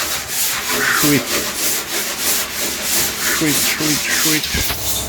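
Sandpaper being rubbed by hand over a car body panel in quick back-and-forth strokes, about three a second, flattening the bodywork for primer. A low steady hum starts near the end.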